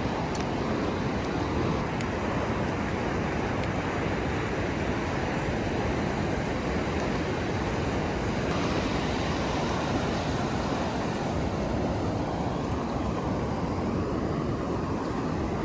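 Steady, even rush of ocean surf mixed with wind noise on the microphone.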